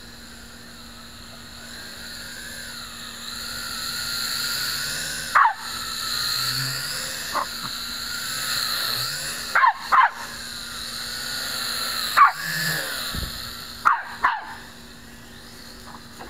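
Small quadcopter's propellers whining, growing louder as it flies close. Over the whine a small dog yaps sharply about seven times.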